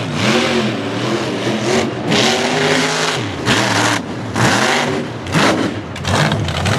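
Supercharged engine of a 1950s Dodge mega truck revving hard as it churns through mud, its pitch climbing and falling several times.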